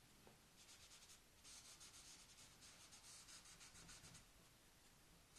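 Faint scratching of a pastel stick stroked quickly back and forth on drawing paper, laying colour down: a short run of strokes just before a second in, then a longer run from about one and a half to four seconds in.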